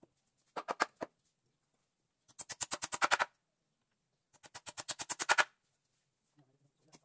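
Hammer blows on a wooden sofa frame in quick runs of sharp knocks, about ten a second. There are three runs of about a second each, and the later two are louder.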